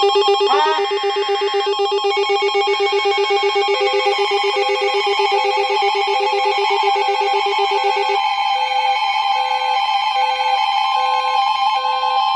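Emergency Alert System attention signal on NOAA Weather Radio: several steady alert tones overlap, and a short beep repeats about once a second from about four seconds in. One lower tone stops about eight seconds in. The signal announces that an emergency warning message follows.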